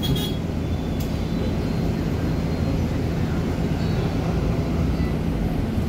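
Inside a Volvo B8RLEA city bus under way: a steady drone from the diesel engine and road noise, with a couple of light clicks in the first second.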